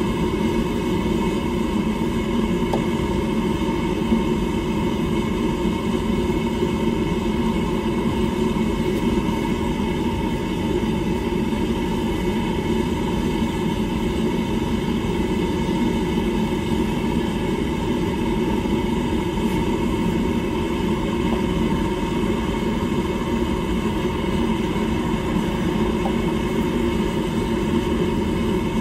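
Steady roaring rumble of a running forge, unchanging in level throughout.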